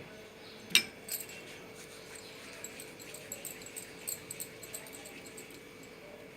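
A small spoon clinks once sharply against a bowl while spices are spooned into a yogurt marinade, then faint light ticking and rustling follows.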